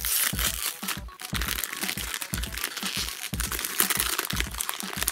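Crinkling and crackling of a foil blind bag being torn open and handled by hand, over background music with a steady thumping beat.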